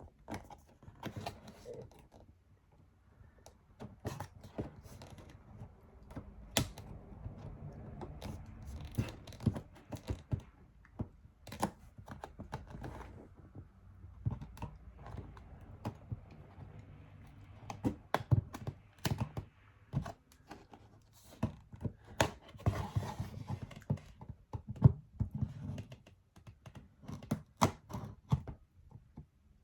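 Cardboard box being handled and opened: irregular scraping, clicking and knocking as the sealing tape is cut and torn, with louder knocks here and there.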